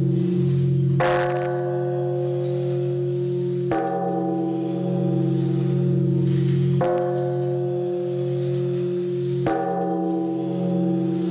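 Large temple bell struck four times with a swung wooden log striker, about every three seconds. Each stroke rings on with a long, deep hum that carries into the next.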